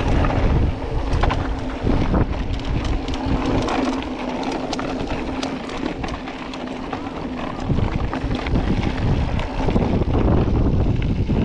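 Mountain bike descending a rough trail: wind buffeting the GoPro's microphone, tyres rolling over loose ground, and frequent rattles and knocks from the bike. It is somewhat quieter for a few seconds in the middle.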